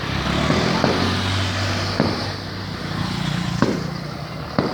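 Fireworks going off at a distance, a handful of sharp bangs about a second apart, over a steady low rumble of passing road traffic.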